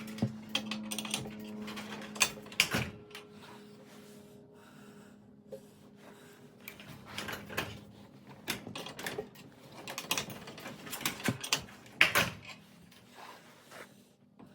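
Metal clicks and clanks of steel winding bars in a garage door torsion spring's winding cone as the spring is wound up, at an irregular pace with a loud clank about twelve seconds in. A faint steady hum runs under the first half.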